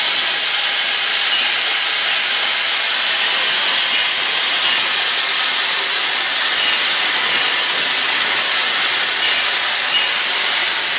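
Steam locomotive venting steam: a steady, loud hiss.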